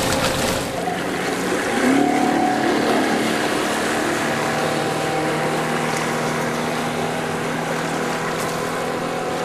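Motorboat engine running at speed over a haze of water and wind noise; about two seconds in its note rises, then holds steady.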